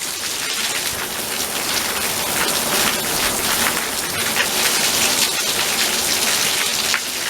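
Heavy downpour hammering on the ground and surfaces: a dense, steady hiss of rain with many individual drops pattering through it.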